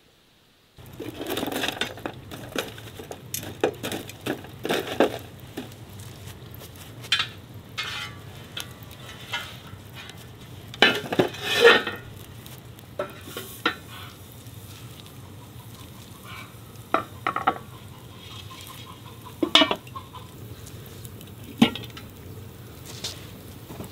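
A spoon stirring apples cooking in a pot, with irregular scrapes, knocks and clinks against the pot starting about a second in, over a steady low hum.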